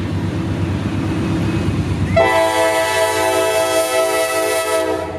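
A CSX GE C40-8W freight locomotive approaches with its diesel engine rumbling. About two seconds in it sounds its air horn in one long, steady blast that cuts off just before the end.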